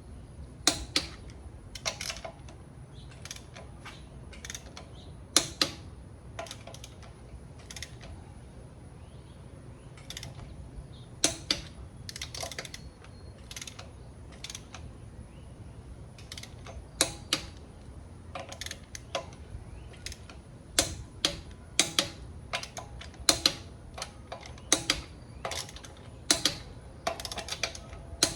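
Irregular sharp clicks and knocks, some in quick pairs and clusters, over a steady low hum.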